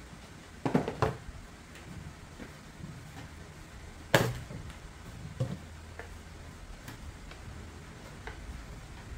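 Cloth wiping a glass tabletop, with a few sharp knocks: two close together about a second in and the loudest about four seconds in, over a low steady hum.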